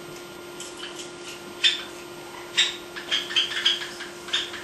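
Java sparrow pecking at and clambering on a small woven rattan ball on a window rail: light, sharp taps and scrapes, one about a second and a half in, then several in quick succession around three seconds, over a steady faint hum.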